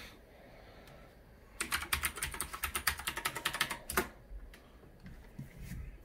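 Typing on a computer keyboard: a quick run of about twenty keystrokes lasting a little over two seconds, then a few lone clicks near the end.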